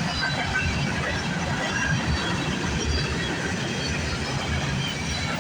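Freight train cars rolling past on the rails: a steady rumble with short, faint high squeals from the wheels.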